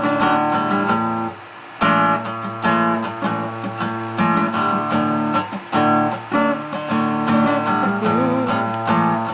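Acoustic guitar strummed in chords, with a short break about a second and a half in before the strumming picks up again.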